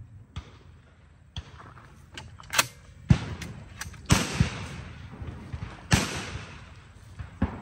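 Two shotgun shots at clay targets, a little under two seconds apart, each trailing off in a long echo. Sharper, smaller clicks and knocks come before and after them.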